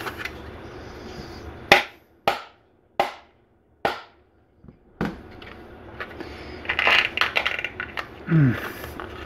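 About five sharp knocks over some three seconds: a hammer tapping a hard plaster casting wedged in a thin vacuum-formed plastic mold, to shock it loose. Then the plastic mold crackles as it is flexed.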